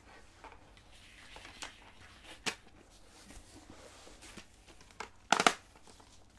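Plastic DVD cases being handled: scattered light clicks and rustling, with a louder clatter of clicks a little over five seconds in, as a case is snapped or set down.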